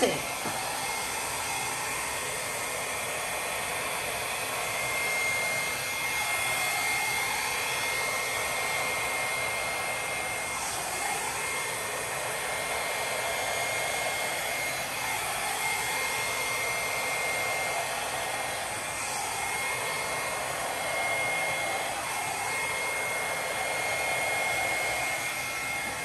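Handheld hair dryer running steadily, a constant high whine over its rush of air, the air sound shifting as it is moved about. It is blowing wet acrylic paint across a canvas in a Dutch pour blowout.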